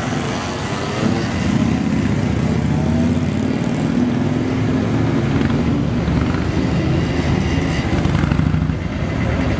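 Several motorcycle engines running as a column of motorcycles rides slowly past one after another.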